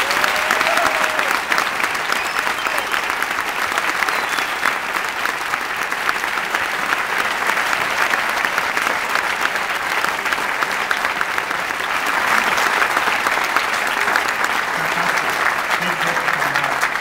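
A theatre audience applauding, a dense, steady patter of many hands clapping.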